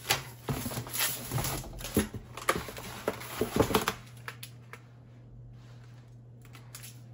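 Rustling, crinkling and tapping as plastic-wrapped food packs are lifted out of a styrofoam box: a busy string of clicks and rustles for about four seconds, then only faint handling. A low steady hum runs underneath.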